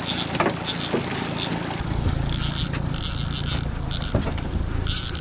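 Conventional fishing reel being cranked to bring in a hooked salmon, its gears clicking rapidly in spells of about a second, over a low steady hum.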